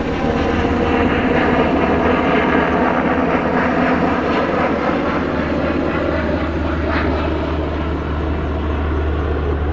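Sikorsky S-70 Black Hawk-type helicopter flying overhead and departing, its twin turbine engines and main rotor running steadily loud; the sound thins a little near the end as it moves away.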